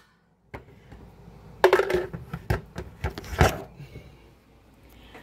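A smartphone falling off its tripod and being grabbed back up: a run of sharp knocks and clatters against the phone's microphone, heaviest about two seconds in and again a second and a half later, then fading.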